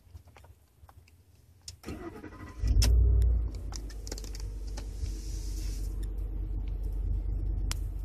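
A 2012 Ford F-150's 5.0-litre V8 cranking on the starter for under a second, catching loudly about two and a half seconds in, then settling into a steady fast cold-start idle at about 1200 rpm. The owner describes this cold idle as rough and blames it on ignition timing retarded by the ECU's cold-start map.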